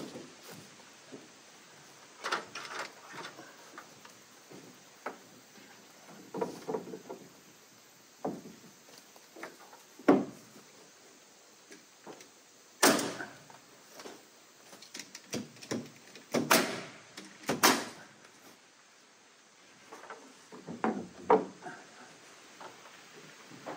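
Irregular wooden knocks and clunks from work on cherry board-and-batten siding, singly or in short clusters with pauses between, the sharpest about ten seconds in.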